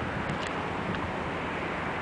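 Steady wind hiss over the microphone, with a couple of faint high chirps about half a second and a second in.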